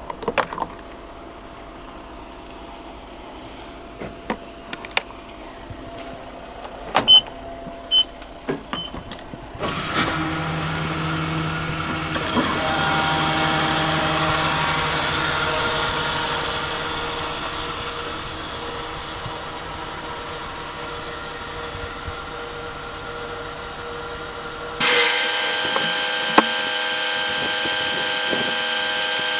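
A car being filled with diesel at a fuel pump: after some clicks and three short beeps, the steady rush of fuel through the nozzle over the dispenser pump's hum begins about ten seconds in. Near the end a much louder, steady electric motor whine from the dispenser cuts in abruptly.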